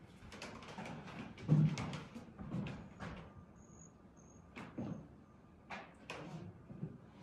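Footsteps on bare wooden floorboards: a string of uneven knocks, the heaviest a little over a second in, with a short pause in the middle.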